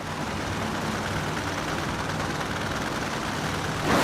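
Supercharged nitro drag-racing engines running together, a dense, loud, steady roar. It steps up louder just before the end.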